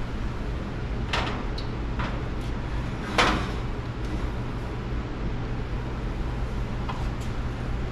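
Aluminum sheet pan set down and slid across a wire oven rack: a few short metal knocks and scrapes, the loudest about three seconds in, over a steady low hum.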